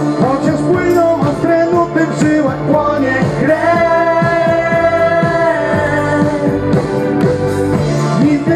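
Pop dance music playing loudly. About three and a half seconds in, a melody holds one long note for a couple of seconds.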